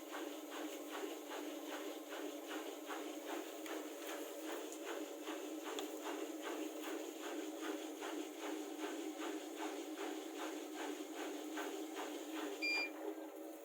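Bosch WLP20265OE washing machine running, its inverter motor and drum giving a steady hum with a regular pulse about three times a second. A short electronic beep comes near the end.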